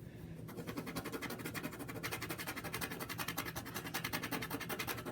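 Ballpoint pen scribbling on paper: rapid, even back-and-forth scratching strokes, several a second, as an area is coloured in by hand.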